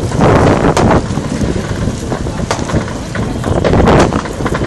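Wind buffeting the microphone in a loud, uneven rumble, broken by a few sharp cracks about a second in, two and a half seconds in and four seconds in.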